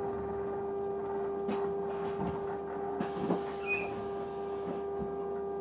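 A weird noise on the bus: a steady tone holding one constant pitch with overtones above it, over the low running noise of the moving bus inside the cabin, with a few light rattles and knocks.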